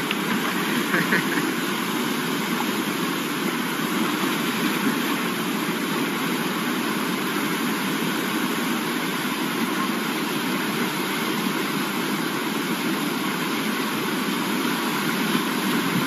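Swollen, muddy river rushing over rapids: a steady, unbroken noise of fast-flowing water.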